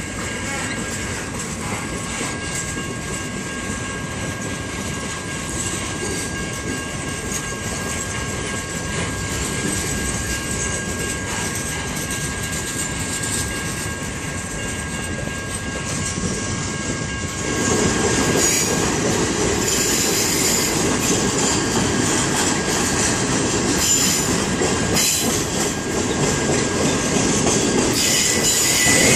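Triple Crown RoadRailer freight train, highway trailers riding on rail bogies, rolling past: a steady wheel-on-rail rumble with a faint high ring. About seventeen seconds in it gets louder, with high wheel squeals.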